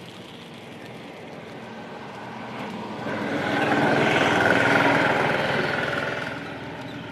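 A motor vehicle passing by: its engine noise grows louder about three seconds in, peaks a second or two later, and fades away.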